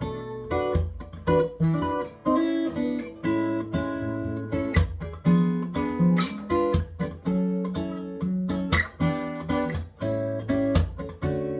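Taylor 714CE acoustic guitar with X bracing played fingerstyle in a bossa nova rhythm: plucked chords with crisp attacks, with melody notes ringing on top.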